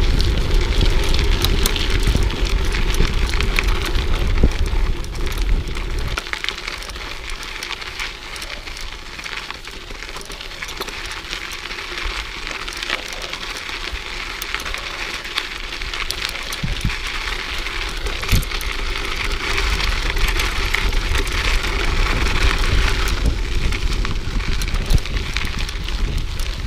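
Mountain bike tyres rolling and crackling over a dirt trail, with many small clicks and rattles from the bike. Wind rumbles heavily on the microphone for about the first six seconds, then eases and slowly builds again toward the end.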